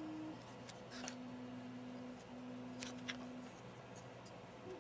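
A few faint sharp clicks of small plastic parts as a plastic foot mount is prised off its clips and lifted off by hand. Behind them a faint steady tone stops just after the start and comes back at a slightly lower pitch for two stretches of about a second each.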